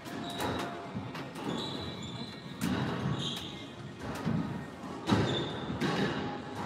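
Squash rally: the ball cracking off rackets and the court walls about every second, with rubber-soled court shoes squeaking briefly on the hardwood floor between strikes.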